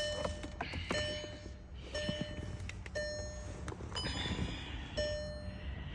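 A car's electronic warning chime sounding repeatedly, one short pitched ding about once a second, as it does with the ignition on and a door open on this 2014 2.0 TDI. A few light clicks and knocks of handling come in the first second and again around two seconds in.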